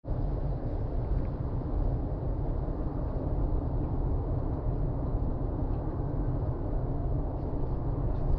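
Steady low rumble of road, tyre and engine noise inside the cabin of a 2019 Subaru Forester X-Break cruising at expressway speed.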